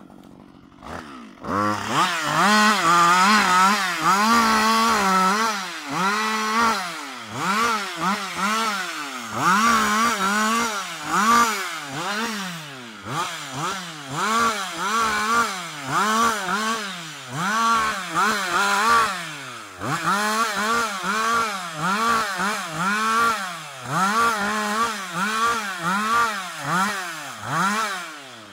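Husqvarna 560 XP two-stroke chainsaw limbing a fallen tree. After a second or so near idle it is held at high revs for a few seconds, then revved up and let off about once a second as each branch is cut, and it drops back at the end.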